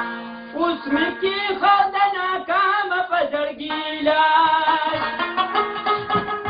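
Rabab music with a voice singing a wavering melody over it.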